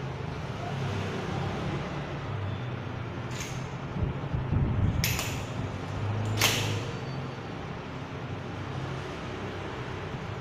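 An expandable baton swung through the air, swishing three times: a short swish about three seconds in, then two sharper ones around five and six and a half seconds. A steady low hum runs underneath.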